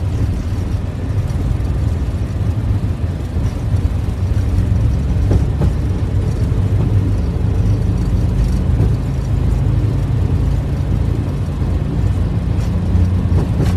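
Boeing 737 on its takeoff roll, heard from inside the cockpit: a loud, steady, deep rumble of the engines at takeoff thrust and the wheels on the runway, with a few faint knocks.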